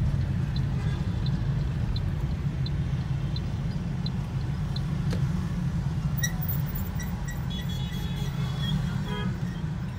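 Steady low rumble of a car's engine and road noise heard from inside the cabin as it creeps through traffic. A light regular tick sounds about every 0.7 s in the first few seconds, and short high horn beeps from surrounding traffic come in the second half.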